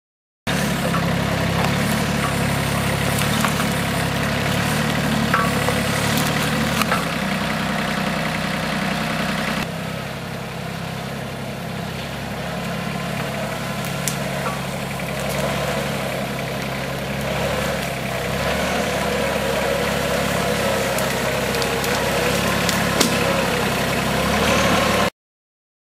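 Compact tractor engine running steadily, with a few short light clanks. The sound drops a little in level about ten seconds in.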